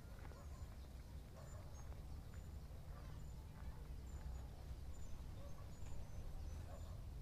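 Quiet open-field ambience: a low, fluctuating wind rumble on the microphone, with faint, short high-pitched chirps scattered throughout.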